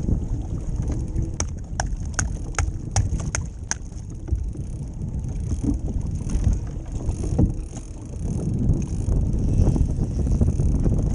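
Strong wind buffeting the microphone over choppy sea water, a dense low rumble throughout. About a second and a half in comes a run of about seven sharp, evenly spaced clicks.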